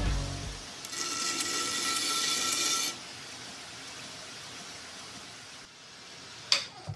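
A 2x72 belt grinder running, its abrasive belt grinding the edge of a G10 handle scale over the 12-inch contact wheel for about two seconds, then running free at a lower, steady level. Two sharp clicks come near the end.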